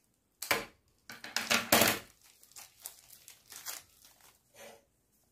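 Clear plastic packaging crinkling and rustling as it is cut and pulled off a doll. The loudest crinkle comes about one to two seconds in, then smaller rustles follow.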